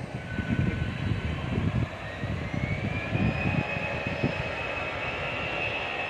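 Twin CFM56 turbofans of an Airbus A320-216 spooling up for its takeoff run: a whine that rises in pitch about two seconds in, then holds steady, over an uneven low rumble in the first few seconds.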